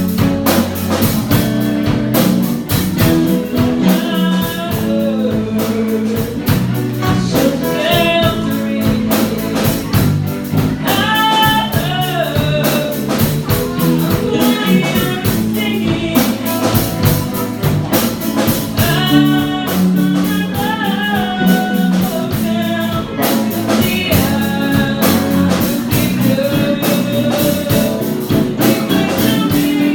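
Rock band playing a song live, with a singer's voice over guitar and drums.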